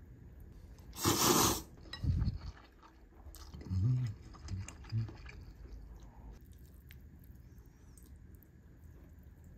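Close-up eating sounds: a loud bite about a second in, then chewing and a short low hum of the voice around four seconds, with wooden chopsticks clinking against a glass bowl of noodles.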